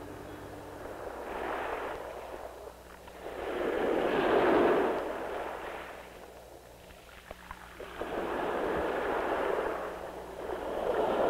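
Small waves washing in on a sandy beach: about four swells of surf rise and fall away, the loudest about four seconds in.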